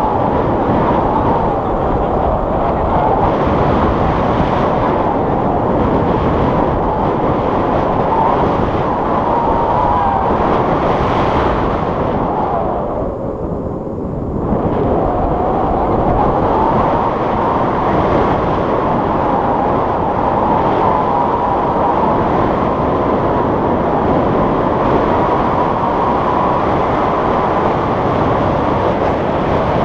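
Wind rushing hard over an action camera's microphone during a tandem paraglider flight, with a thin whistling tone that wavers up and down. The noise eases briefly about halfway through.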